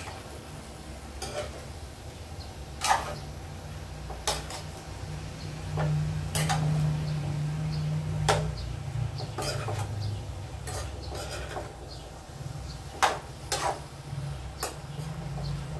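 A spatula scraping and clinking against a frying pan while mixing vegetables, in irregular knocks about once a second, the sharpest a few seconds in and near the end, over a low steady hum.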